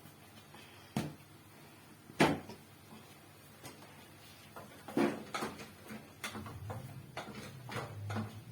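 Kitchen handling sounds: sharp knocks and clatters of containers and utensils, the loudest about two seconds in, then a run of lighter taps. A low hum comes in near the end.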